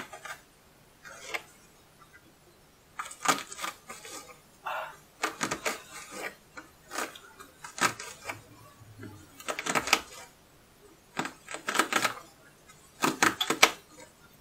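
Kitchen knife chopping an onion on a plastic cutting board: short runs of quick knocks, a few cuts at a time, with pauses between the runs.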